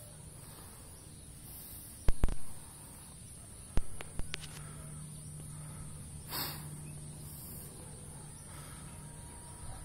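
Steady high-pitched drone of insects in rural outdoor ambience, broken by a few sharp knocks about two seconds in and again around four seconds in. A low steady hum comes in for the second half.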